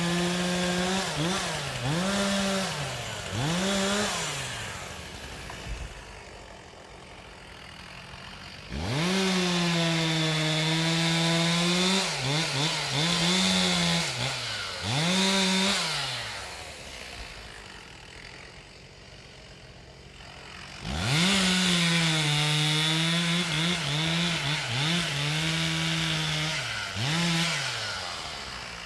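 Two-stroke chainsaw run at full throttle in three long bursts, each followed by a few quick revs up and down and then dropping back to idle for several seconds.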